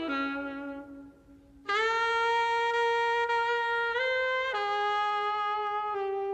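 Saxophone playing a slow melody of long held notes; the first note fades away, and after a short pause a long note comes in about a second and a half in, then steps up and down in pitch.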